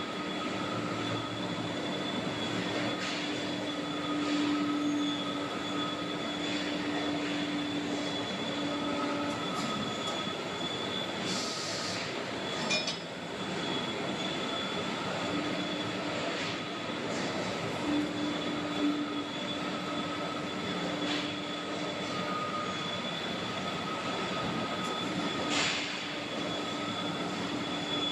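Hydraulic baler press for metal scrap running: the steady hum and whine of its hydraulic power unit, with a pitched drone that drops out for about six seconds in the middle and then returns. A short hiss comes about eleven seconds in, and there are a few sharp metallic clinks.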